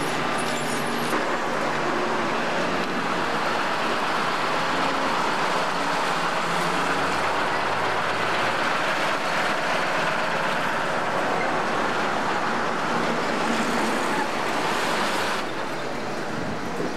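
City bus engine running and pulling away, passing close by amid street traffic noise; the sound eases off about a second and a half before the end.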